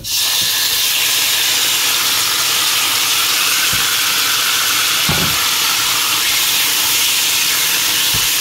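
Marinated pork strips dropped into a hot oiled frying pan with garlic, sizzling loudly and steadily from the moment they land. A wooden spatula knocks against the pan a few times as the meat is stirred.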